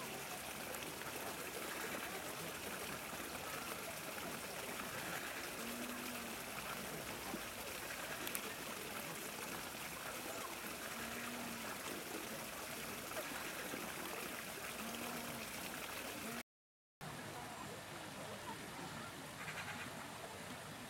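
Steady hiss of running water, with faint distant voices now and then. The sound cuts out for about half a second some sixteen seconds in.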